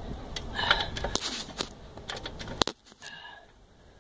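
Irregular metallic clicks and knocks from a jack being worked to raise the car's front wishbone, with one sharp click about two-thirds of the way through.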